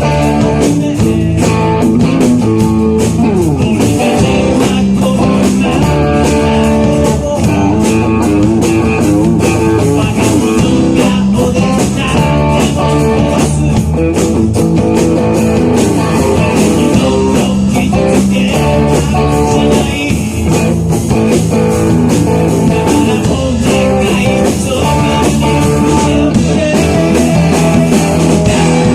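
Rock band playing live: guitar over bass and drums with a steady beat.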